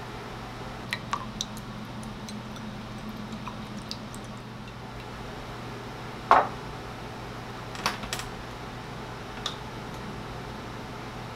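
A salt shaker is set down on a wooden table with one sharp knock about six seconds in. There are a few lighter clicks and taps before and after it, over a steady low hum.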